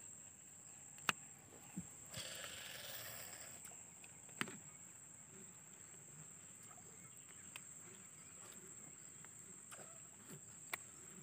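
A casting rod swishing through a cast with line paying out from the spinning reel, a brief rush about two seconds in lasting a second and a half, followed by a sharp click about four seconds in. A steady high insect whine runs underneath, with a few more faint clicks.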